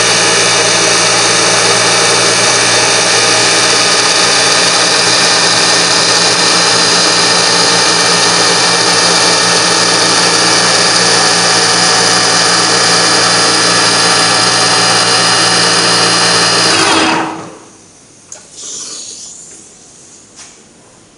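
Manual milling machine rough-milling aluminium with a 10 mm three-flute carbide end mill at about 3000 rpm: a loud, steady cutting whine with many tones. It drops away sharply about seventeen seconds in, leaving only faint hissing.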